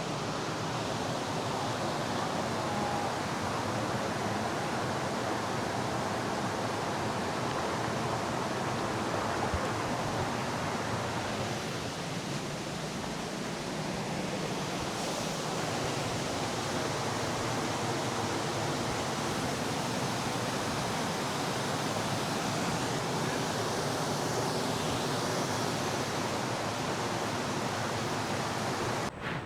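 Forest stream rushing with a steady, even sound of running water.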